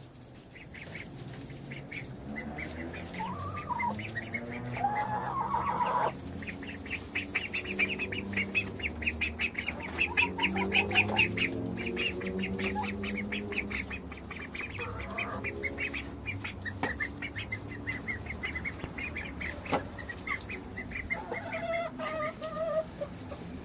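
Backyard chickens clucking and calling, with a fast run of short high chirps from about seven to fourteen seconds in.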